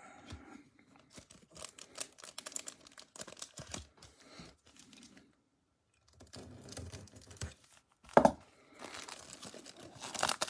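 Foil trading-card pack wrapper being torn open and crinkled by hand: scattered crackles and rips, a brief pause a little past halfway, a short louder burst about eight seconds in, then steadier crinkling.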